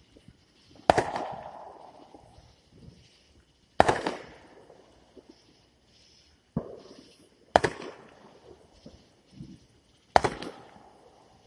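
Fireworks going off: five sharp bangs a few seconds apart, each trailing off over about a second.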